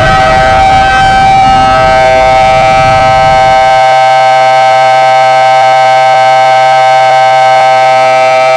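Homemade Emergency Alert System alarm: a loud, steady electronic alert tone of several held pitches, with a low noise beneath it that cuts off about four seconds in.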